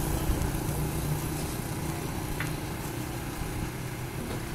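A motor vehicle's engine running close by, its low steady hum fading after about a second and a half, over a continuous rumble of street traffic.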